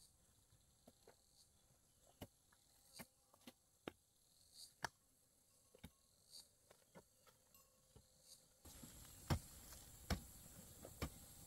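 Near silence with faint insects chirring steadily and scattered light taps and clicks. The background hiss rises about nine seconds in.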